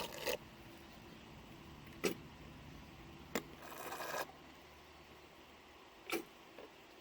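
Handling noises: a few separate sharp knocks or clicks and a brief scraping rustle about halfway through, over a low steady hum.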